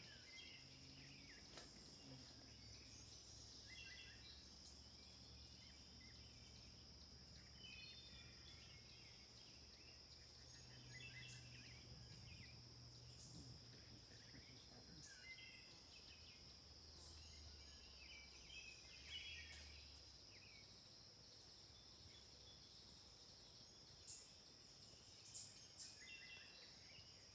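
Faint woodland ambience: a steady high-pitched insect drone, with scattered short bird chirps. Three sharp clicks come near the end.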